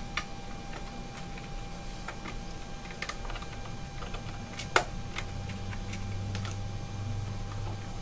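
Light clicks and taps of the iMac's perforated aluminium RAM-slot cover being fitted back over the memory slots and pressed into place by the fingers, with one sharper click about halfway through. A faint steady low hum lies underneath.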